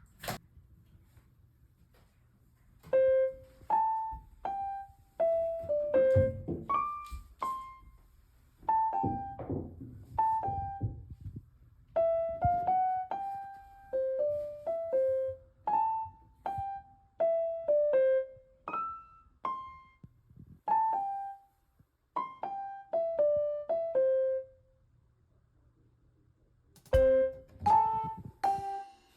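Background music: a simple melody played one note at a time on piano or electric piano, in short phrases with pauses between them.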